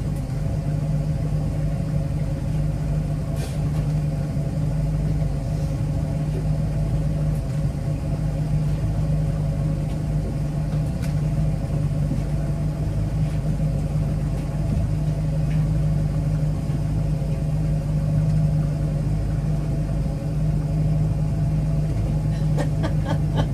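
Fishing boat's engine running steadily at trolling speed, a constant low hum with a few fainter steady higher tones over it.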